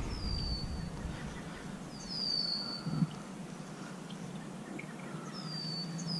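Quiet lakeshore ambience with a small bird giving high, thin, down-slurred whistled calls, a few at a time: a pair about two seconds in and another group near the end. There is a single soft bump about three seconds in.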